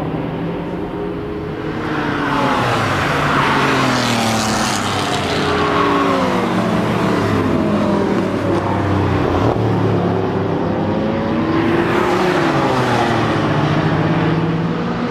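High-performance car engines accelerating and driving past on a race track, including the Brabus 850 6.0 Biturbo CLS Shooting Brake's twin-turbo V8. The sound grows louder about two seconds in, and the engine notes climb and fall again and again as the cars speed up, shift and pass.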